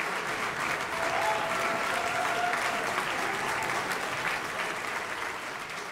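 Hall audience applauding, a dense steady clapping that fades out near the end.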